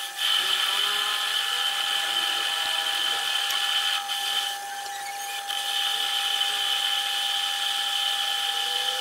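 Metal lathe turning a stepped metal shaft, the tool cutting with a steady whine. The sound drops for about a second around the middle, then comes back.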